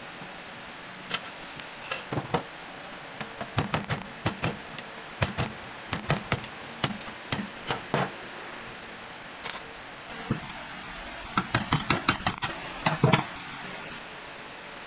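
Irregular metallic clicks and knocks from a 2015 Toyota Yaris driveshaft being worked by hand at its CV joint while clamped in a bench vise, with quick clusters of clicks a few seconds in and again about eleven to thirteen seconds in.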